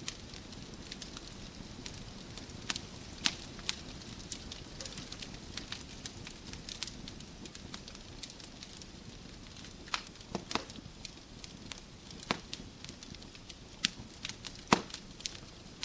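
Wood fire burning in a fireplace: a steady low hiss with scattered crackles and a few sharper pops, the loudest a little before the end.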